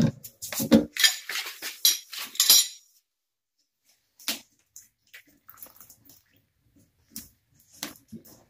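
Metal wrench clinking and scraping on an old corroded under-sink water shut-off valve as it is worked loose, a quick run of sharp clicks and knocks for about three seconds, then only a few faint handling clicks.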